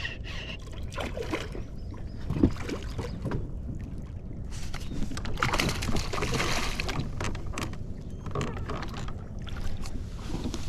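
Wind buffeting the microphone and water noise around a bass boat while a hooked bass is fought in, with scattered clicks and a louder rush of noise about five seconds in.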